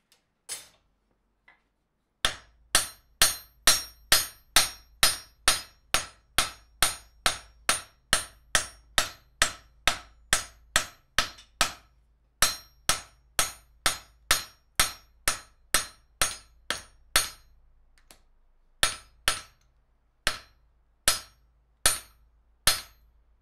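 Hand hammer striking the hot end of a steel bar held in a heading tool on the anvil, upsetting it into a head: a steady run of sharp, ringing blows about two a second, easing into a few slower, spaced blows over the last few seconds.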